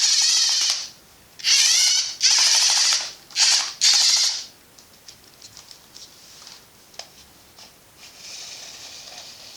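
Small electric motors and plastic gears of a Lego Technic RC excavator whirring in short bursts that start and stop abruptly, four or five runs in the first half, then a few light clicks and a fainter run near the end.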